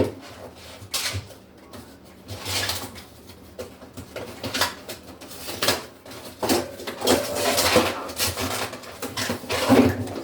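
Items being handled and set into a freezer: irregular knocks, clatters and rustling of packaging, with a few longer rustles.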